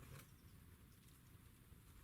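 Near silence of outdoor room tone, with one faint click or tap just after the start.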